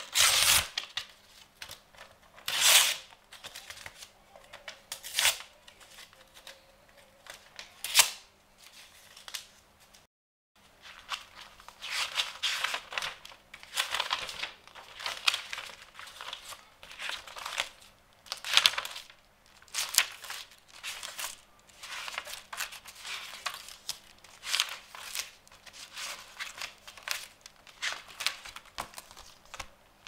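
Paper torn by hand, four separate rips a couple of seconds apart. After a brief silence, book pages are turned one after another: a dense run of paper rustles and flicks.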